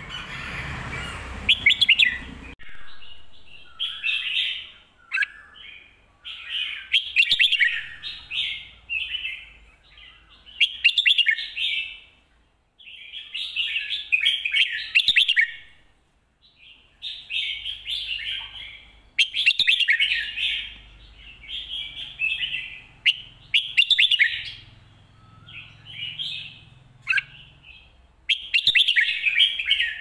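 Red-whiskered bulbul singing its song in short, quick phrases repeated every one to two seconds with brief pauses between them. A rushing noise sits under the first two seconds.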